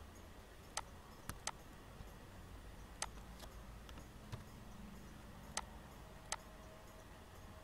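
Computer mouse and keyboard clicks: about half a dozen sharp, unevenly spaced clicks, some in quick pairs, with a few fainter ones, over a faint steady hum.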